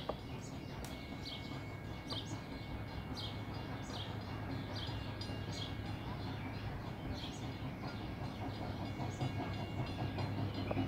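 Canadian National 89 steam locomotive and its passenger coaches rolling out of the yard: a low, steady rumble that grows louder toward the end. A bird chirps repeatedly over it, about twice a second.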